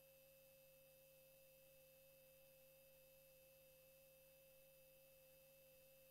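Near silence: room tone with a faint steady tone and hiss.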